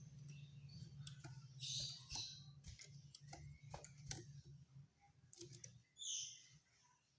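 Common iora (sirtu/cipoh) giving short, harsh rattling calls, one about two seconds in and another about six seconds in, among scattered sharp clicks. A low hum stops about five seconds in.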